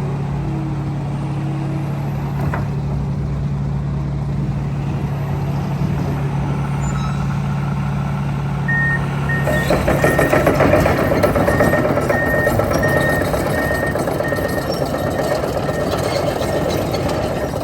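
Komatsu PC170LC-11 hydraulic excavator's diesel engine running steadily, then revving up about halfway through as the machine works. Its travel alarm beeps repeatedly, about twice a second.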